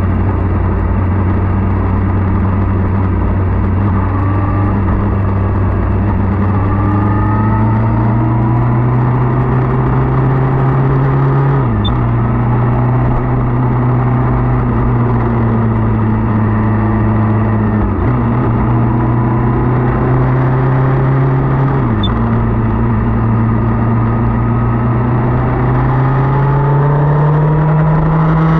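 Motorcycle engine running under way, its pitch slowly climbing as it gathers speed, with three brief dips in pitch before it picks up again. A steady rush of wind and road noise runs beneath it.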